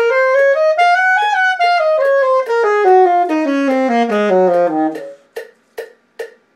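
Alto saxophone playing a major scale with each note tongued, about two and a half notes a second, climbing over two octaves to a top note and coming back down, ending about five seconds in. A metronome then clicks steadily, about two and a half clicks a second, keeping the practice tempo.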